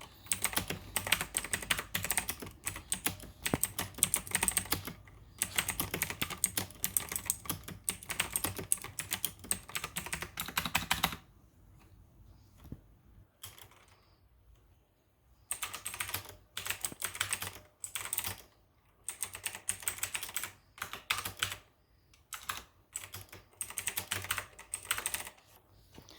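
ZEB Max-V2 mechanical keyboard with clicky blue switches being typed on: fast, continuous typing for about eleven seconds, a pause of about four seconds, then typing in short bursts with brief gaps.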